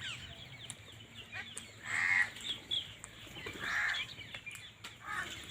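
A flock of mixed birds feeding on scattered grain, calling and chirping with many short chirps. Two louder calls stand out, about two and four seconds in.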